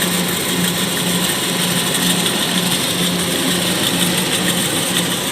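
Kubota DC-105X combine harvester's diesel engine and threshing machinery running steadily, a low hum pulsing about twice a second over a constant mechanical hiss.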